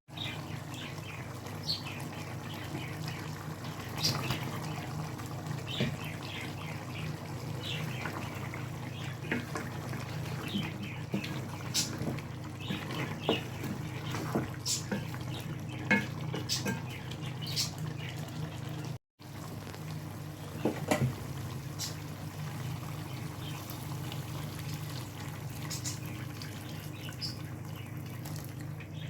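Chicken curry bubbling in a pan: scattered short pops and clicks over a steady low hum. The sound briefly cuts out about two-thirds of the way through.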